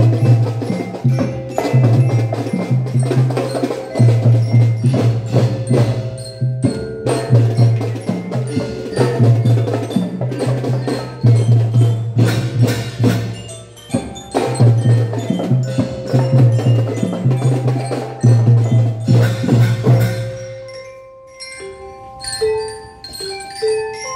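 Children's drum band playing: bass drums beating a repeated pattern under snare drums and clashed hand cymbals, with a melody on top. About twenty seconds in the drums stop and only a few bell-like melody notes go on.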